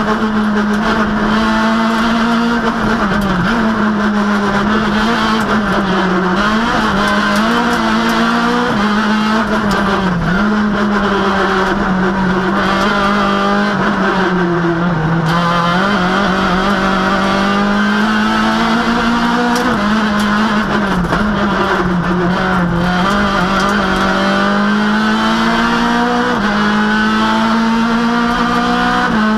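Citroën Saxo rally car's engine heard from inside the cabin, running hard at high revs. Its pitch dips and climbs again every few seconds as the driver changes gear.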